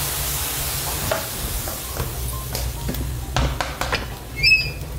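Kitchen cooking sounds. A soft sizzling hiss fades over the first second or so, then come a few scattered knocks and clatters of utensils, and a brief squeak about four and a half seconds in.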